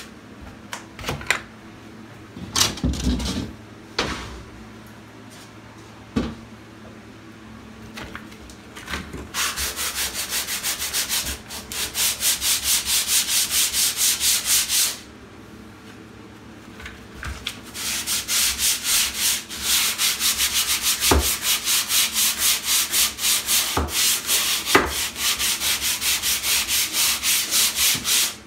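100-grit sandpaper on a hand sanding block scratching over dried 20-minute setting-type joint compound to knock down the ridges on a drywall patch; this dense quick-set mud sands harder than lightweight compound. Quick back-and-forth strokes, about four a second, come in two long spells from about ten seconds in, with a short pause between them. The first third is quieter, with a few scattered knocks.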